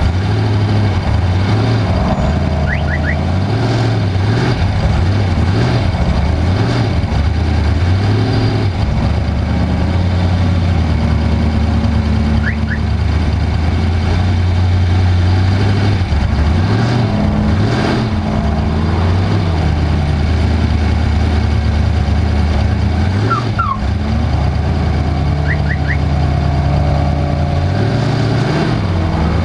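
Off-road race vehicle's engine running hard, its pitch climbing and dropping repeatedly with throttle and gear changes. A few brief high double chirps sound now and then over the engine.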